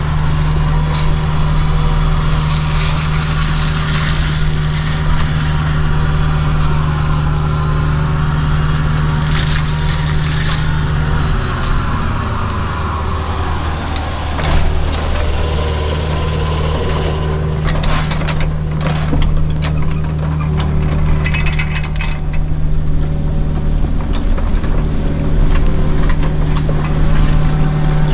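Kubota U55-4 mini excavator's diesel engine running hard and steady, its pitch sagging under load about halfway through and then recovering. Bursts of rushing noise come twice in the first half, and a run of sharp knocks and cracks comes later on.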